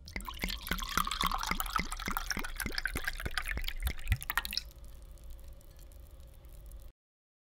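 Red wine poured from a bottle into a wine glass: splashing with a run of glugs, about four or five a second. After about four and a half seconds it drops to a faint tail, which stops abruptly near the end.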